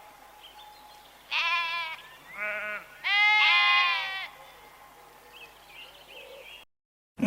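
A bleating animal calls three times: a bleat about a second and a half in, a short one just after, and a longer, wavering one at about three seconds. Then only faint background remains.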